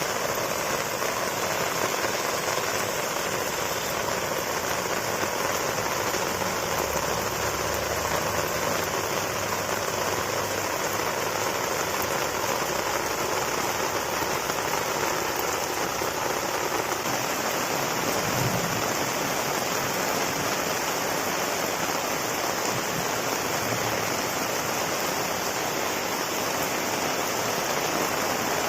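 Heavy rain falling steadily, an even, unbroken hiss of rain on surfaces. A faint low hum runs underneath for a stretch in the middle.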